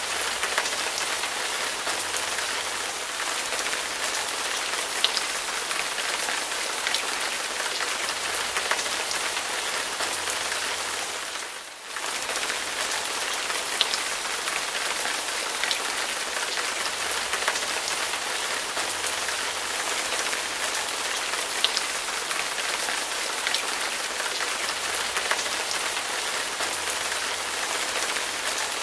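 A steady, even hiss of water with scattered faint ticks. It dips briefly about twelve seconds in.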